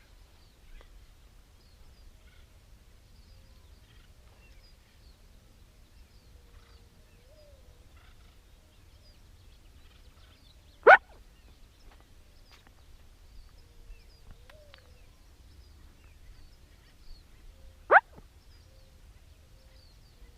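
Two short, sharp turkey calls, loud and about seven seconds apart, over a faint outdoor background with a few faint distant bird calls.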